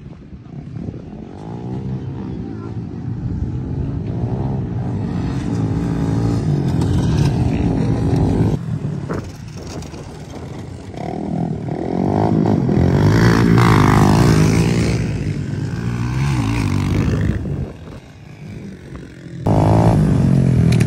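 Several small dirt bike engines revving up and down as the bikes ride past on a dirt track, the engine pitch rising and falling with each throttle change. The sound changes abruptly twice as one stretch of riding gives way to another.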